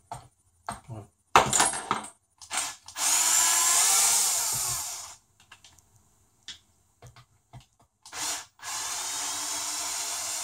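Cordless drill driving screws into an RC truck's plastic skid plate and chassis. A few light clicks of screws and handling come first, then a burst of drill whine about 3 seconds in that lasts about two seconds, and a second, quieter steady run starting near the end.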